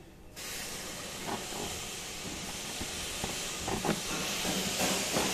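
A steady hiss starts abruptly about a third of a second in, with a few short clicks and knocks of plastic door trim being pried at with a screwdriver.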